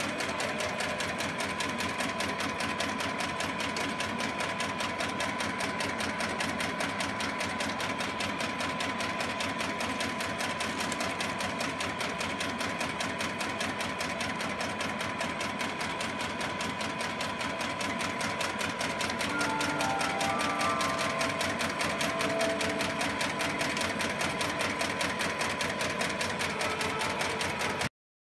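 LSD-400B automatic high-speed paper bag making machine running at production speed, a fast, even mechanical clatter from its cutting and bottom-folding stations, with a steady whine. The sound cuts off suddenly near the end.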